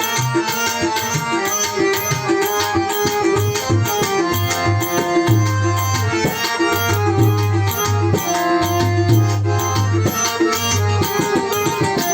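Indian music led by tabla playing a steady rhythmic pattern, with held melodic tones above it and deep bass strokes that come and go.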